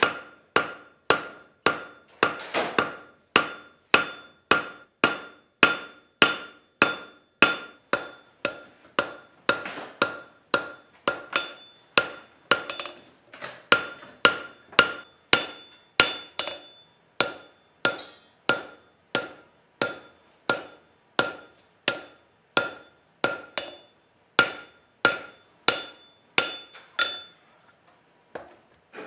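Hammer strikes on hot steel on an anvil, forging a wrought iron san mai knife blank. The blows come steadily at about two a second, each with a ringing anvil tone, and stop shortly before the end.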